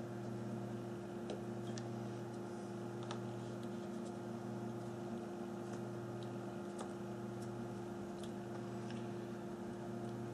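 Steady low electrical hum, with faint, scattered light clicks of small phone parts and tools being handled during reassembly.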